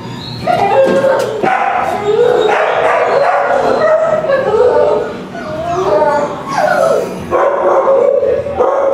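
Shelter dogs in chain-link kennels barking, yipping and howling, several calls overlapping almost without pause.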